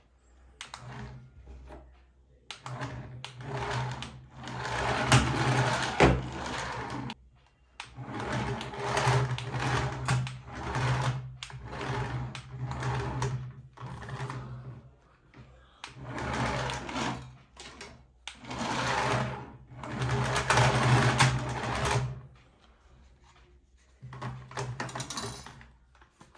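A toy remote-control car's small electric motor and gears whirring in about six runs of a few seconds each, stopping and starting again as it is driven.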